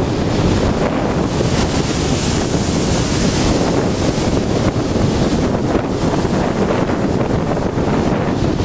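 Storm waves breaking and washing on the sea against a groyne, with heavy wind buffeting the microphone. A louder rush of surf comes about a second and a half in.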